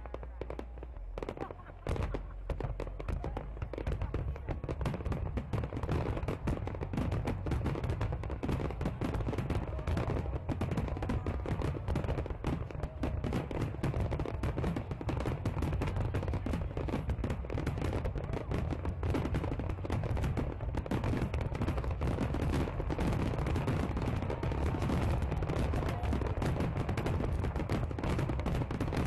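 Fireworks display in a rapid barrage: shells bursting in quick bangs and crackle with hardly a gap, growing denser about two seconds in.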